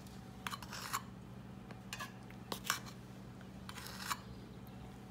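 A metal measuring spoon scraping and tapping in short strokes as baking powder is scooped and dropped onto the flour, over a steady low hum.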